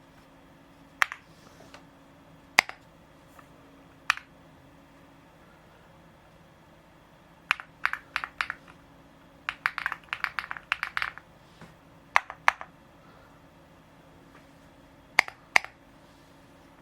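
Keystrokes on a Feker Galaxy80 mechanical keyboard fitted with Keytok KOL Wandering Earth II keycaps: scattered single key presses, a short fast burst of typing about ten seconds in, then a few more single presses.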